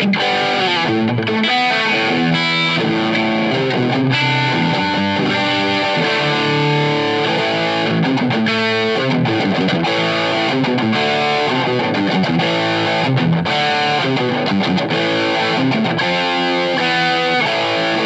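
Electric guitar, a cheap Chinese Les Paul copy ('Chibson') with humbucking pickups, played in a sound demo: single-note melodic lines with some long held notes and a couple of quicker runs.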